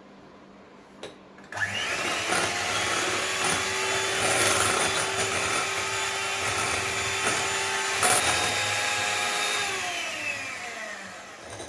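Electric mixer beating cake batter of eggs, sugar, milk and oil: the motor starts about a second and a half in, rising quickly to a steady whine, runs for about eight seconds, then slows with falling pitch and stops near the end.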